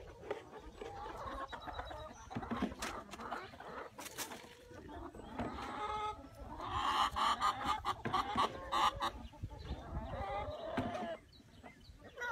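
Domestic hens clucking, with a stretch of loud, rapid calls about halfway through as one hen is caught and lifted.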